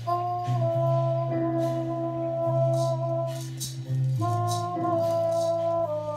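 A red maraca shaken in loose, uneven strokes over music of long held notes and a steady bass line.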